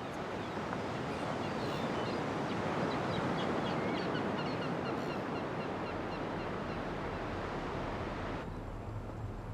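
A steady rush of water noise that swells to a peak a few seconds in and eases off again, with faint high chirps over it. The sound changes abruptly near the end.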